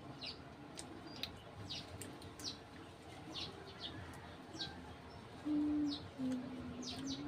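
Small birds chirping: short, high, falling chirps repeating a few times a second. About five and a half seconds in come two low, steady, coo-like tones, the first brief and the second about a second long; these are the loudest sounds.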